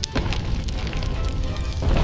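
Soundtrack music under a low rumble and crackling of a burning-building fire effect, with a sudden hit at the start and a heavier low boom near the end.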